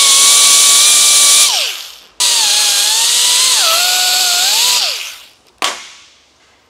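Hand-held right-angle air cut-off tool running at a steady high whine and winding down about one and a half seconds in. It starts again, drops in pitch partway as it cuts into a painted stainless steel trim strip, and winds down again. A sharp click follows near the end.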